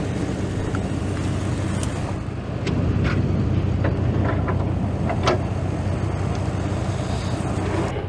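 A 4x4's engine idling steadily, with several sharp clinks in the middle as the front winch hook and cable are pulled out by hand for a recovery.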